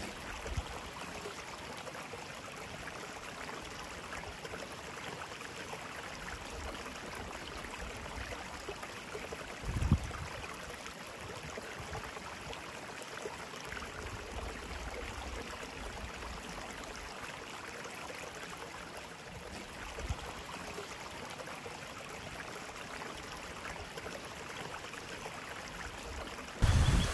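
Running water of a small creek and waterfall, a steady rushing, with a short low thump about ten seconds in. A louder, different sound cuts in right at the end.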